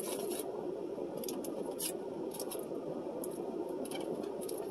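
Steady fan noise of a car's air conditioner running, with scattered light clicks and scrapes as hands pick at takeout food with a plastic fork.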